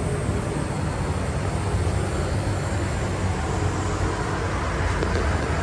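Steady low mechanical rumble with an even hiss over it, unchanging throughout.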